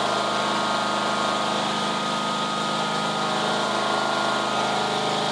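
Kawasaki FH661V 22 hp air-cooled V-twin engine on a zero-turn mower running steadily at idle, throttled all the way down.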